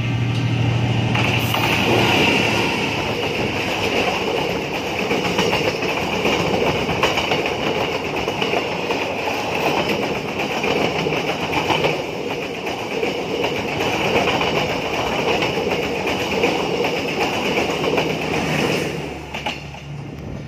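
Diesel-hauled passenger train passing close by: a steady loud rush of locomotive and wheel-on-rail noise with irregular clicks from the wheels. It drops off sharply near the end as the last carriage goes by.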